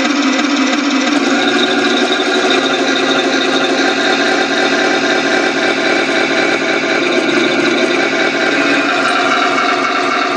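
Tamiya Tiger I full-option RC tank's sound unit playing a steady simulated tank engine through its onboard speaker while the model drives and turns.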